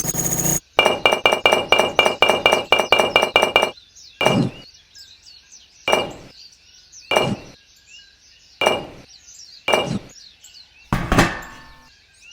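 A fast run of sharp clinks for about three seconds, then five single clinks spaced roughly a second apart, and a ringing pitched tone near the end.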